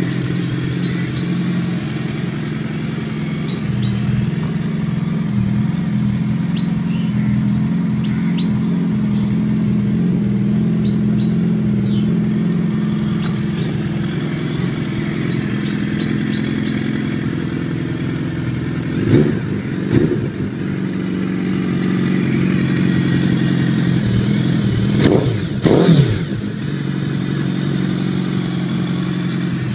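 A 2013 Suzuki Hayabusa's inline-four engine idling steadily through a Two Brothers aftermarket exhaust. Its throttle is blipped twice in quick succession about two-thirds of the way through, and twice more near the end, the pitch rising and falling back to idle each time.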